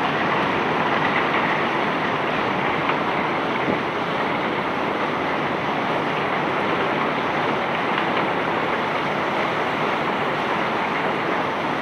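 Steady rushing noise of bulk ore being unloaded from a sand barge, even throughout with no single knocks standing out.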